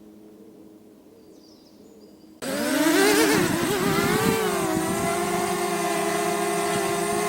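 A DJI Mavic Mini quadcopter drone's propellers start up suddenly about two and a half seconds in. The pitch wavers for a couple of seconds, then settles into a steady, even hover tone. Before that there is only a faint low hum.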